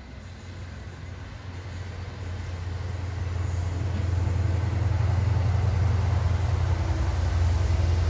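A low, steady rumble that grows louder over the first few seconds and then holds.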